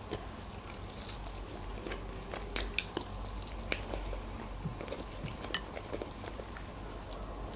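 A person biting and chewing a pan-fried chicken wing in sweet-sour pomegranate sauce: irregular small crunches and wet mouth clicks, a few of them louder.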